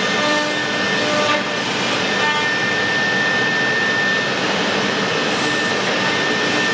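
Door panel CNC machine running, its router spindle and dust extraction making a steady loud noise with a high whine, as the spindle head works along a wooden door panel.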